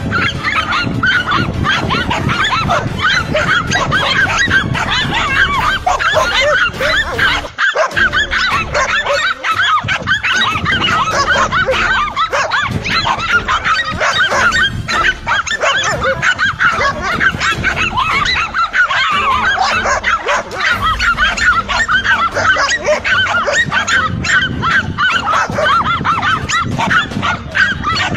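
Several dogs barking continuously and over one another while they bait a monitor lizard, with a short break about seven seconds in.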